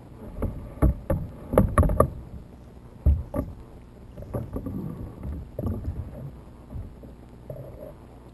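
Muffled underwater knocks and thumps over a low rush of moving water. A cluster of sharp knocks falls in the first two seconds and a single one around three seconds, then softer bumps follow.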